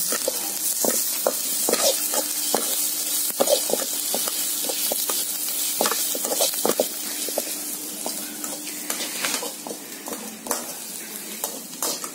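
Onions, garlic and green chillies sizzling in hot oil in a metal kadai, with a slotted steel spatula scraping and clinking against the pan as they are stirred. The stirring strokes thin out near the end.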